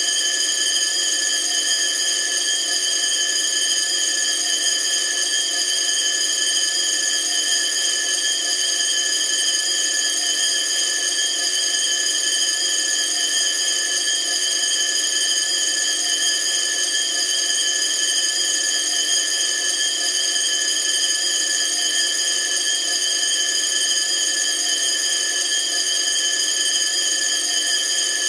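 Vintage bell ringing continuously at an even, unbroken level, with no pauses.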